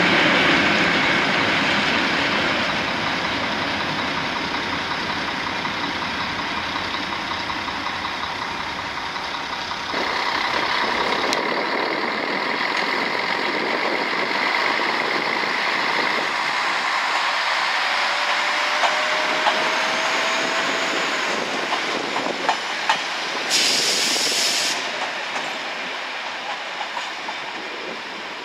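ČD class 842 'Quatro' diesel railcar with a trailer coach running through the station, wheels clicking over rail joints. A short hiss comes about two-thirds of the way through.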